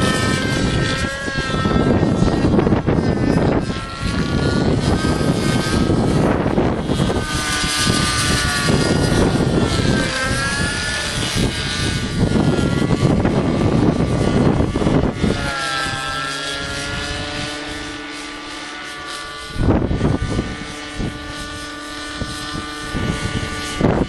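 Thunder Tiger 53 two-stroke glow engine with a 3D muffler running a nitro RC helicopter in flight, its note rising and falling as the model manoeuvres. Wind buffeting the microphone makes a heavy low rumble through most of the sound, easing for a few seconds past the middle.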